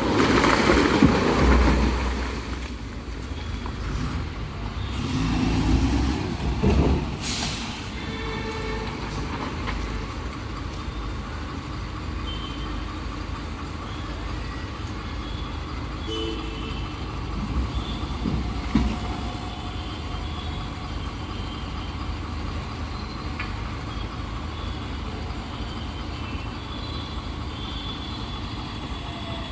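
Heavy diesel engines of a tipper truck and an excavator running. There are loud surges with a hiss in the first two seconds and again around six to seven seconds in, then a steady rumble.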